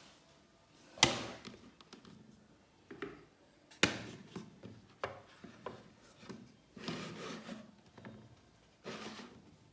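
Marbles knocking and rolling on wooden rails: two sharp clacks about a second and nearly four seconds in, lighter clicks between, and longer rolling stretches near the end.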